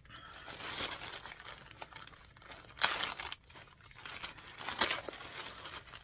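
Plastic packaging and a shopping bag crinkling and rustling as fabric purchases are rummaged through, in uneven bursts with the sharpest crackle about halfway through.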